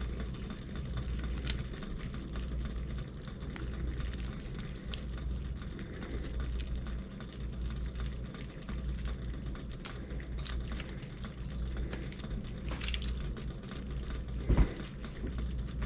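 Pot of water at a rolling boil, bubbling steadily with scattered small pops over a low steady hum. A single knock sounds about fourteen and a half seconds in.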